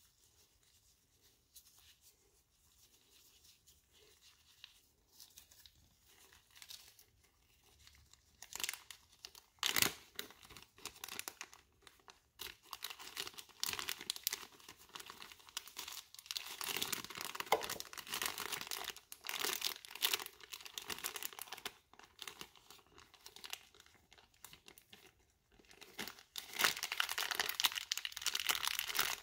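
Clear plastic zip bag crinkling and rustling as it is handled in gloved hands, in irregular crackly stretches that start about eight seconds in.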